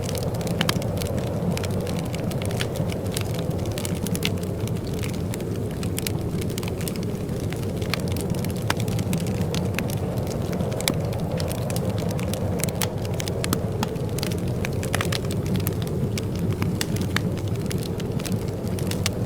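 Wood fire crackling in a fireplace: many sharp, irregular pops and snaps over a steady low rumble of the flames.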